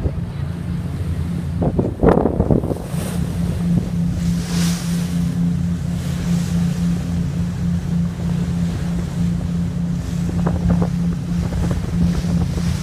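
Ferry's engines droning steadily in a low hum, under the rush of water churned along the hull. Wind buffets the microphone in gusts, the strongest about two seconds in.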